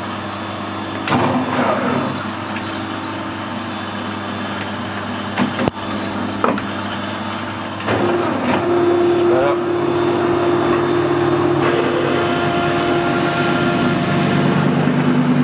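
Metal lathe running, spinning a mild steel plate on a faceplate while a large Morse taper twist drill fed from the tailstock cuts through the plate's hole. About eight seconds in the drilling gets louder, with a steady whine over the machine's hum.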